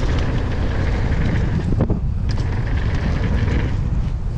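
Wind buffeting the camera microphone of a mountain bike moving fast down a dirt trail, over a steady rumble from the tyres with small rattles and clicks from the bike. The noise drops briefly about two seconds in.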